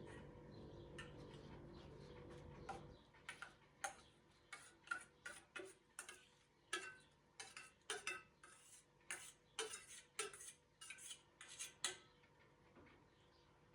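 Utensils and dishes clinking and tapping in a quick irregular run, about two light strikes a second, some with a short ring. A low steady rumble in the first three seconds stops before the clinking begins.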